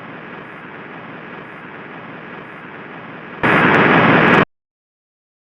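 Faint, steady hiss of broadcast static, then a loud burst of static about three and a half seconds in, lasting about a second and cutting off abruptly.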